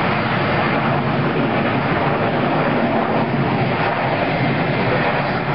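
Steady jet engine noise from airliners on the runway, chiefly a Delta MD-88's rear-mounted turbofans during its ground roll: a loud, even rush with no breaks.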